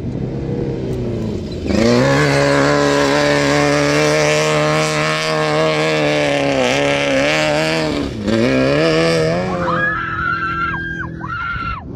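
Off-road race vehicle's engine running hard at high revs as it comes past close and slides through the dirt, its pitch held steady with two brief dips where the throttle eases and picks back up. Near the end a different, higher wavering sound takes over.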